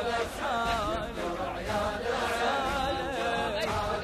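A Shia mourning lament (latmiya) being chanted, one voice carrying long, wavering held notes that glide up and down.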